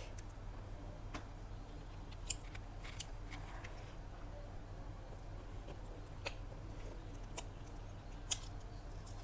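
Quiet eating sounds: a few separate sharp clicks and smacks from a mouth chewing chicken biryani, spaced about a second apart, over a steady low hum.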